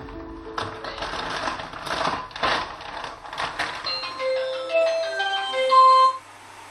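Edited-in music cue: a run of soft scratchy clicks, then from about four seconds in a short tinkly melody of single bell-like notes stepping up and down. It stops just after six seconds.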